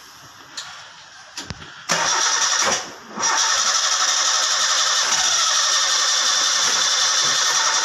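Toyota Avanza's starter motor cranking the engine, which does not fire: a few clicks, a short crank about two seconds in, a brief pause, then a long unbroken crank. The engine will not start after its crankshaft and camshaft position sensors were removed, cleaned and refitted.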